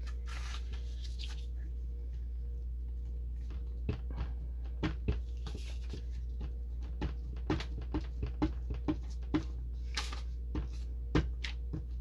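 Paper handling at a craft table: a brief rustle, then from about four seconds in a run of small, sharp, irregular clicks and taps, roughly two a second, over a steady low hum.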